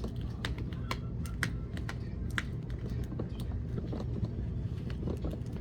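Irregular small plastic clicks and ticks as the glued plastic screen bezel of a Dell 3100 Chromebook is pried and worked loose, over a steady low hum.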